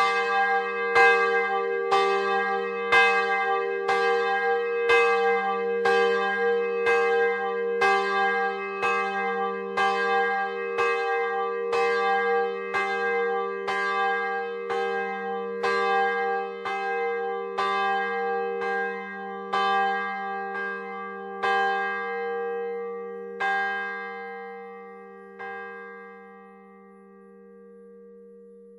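The largest of three Rudolf Perner (Passau, 2009) bronze church bells, 615 kg and tuned to g', swung by its electric motor and struck by its clapper about once a second. Near the end the strokes come further apart and stop as the bell is brought to rest, leaving its low hum fading out.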